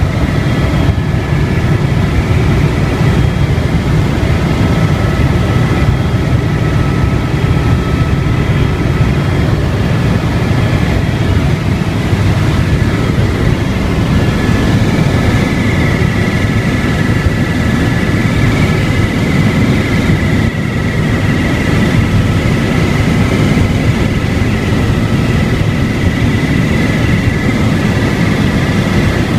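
Helicopter in flight heard from inside the cabin: a loud, steady rotor and turbine drone with a thin turbine whine on top.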